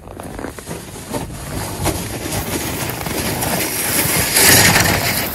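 Close, handheld rustle and crunch: boots on snow and a jacket rubbing against the microphone, rising to a loud rushing hiss about four and a half seconds in.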